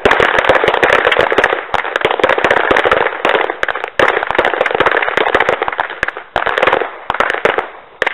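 Pistol shots fired in rapid succession, many close together and overlapping, each big report trailing off in a long echo.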